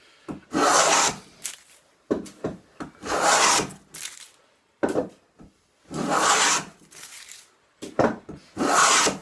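Wooden tongue-and-groove hand plane cutting shavings along a board edge: four strokes, each about a second long, every few seconds, with light knocks between them.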